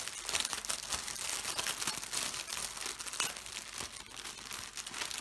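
Plastic packaging crinkling and rustling as it is handled, a continuous run of small crackles.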